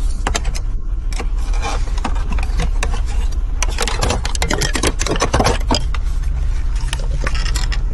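Plastic dash trim clicking and rattling as a pry tool works the Toyota 4Runner's air conditioning panel free of its clips: many short clicks, thickest in the middle, over a steady low hum.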